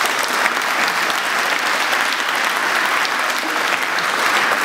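Audience applauding, a steady round of clapping that holds at an even level.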